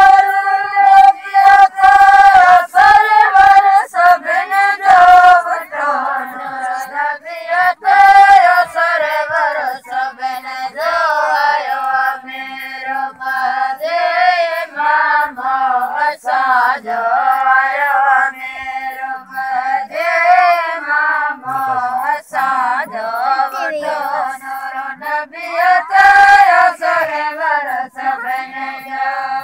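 Sindhi sehra (lada), a folk wedding song, sung by a group of women's voices in a wavering, ornamented melody.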